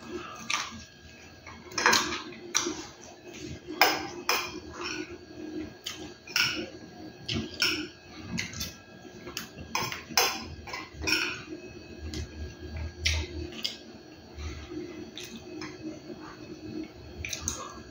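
A metal fork clinking and scraping irregularly against a plate of rice and fried chicken, with close-up chewing of the chicken in between.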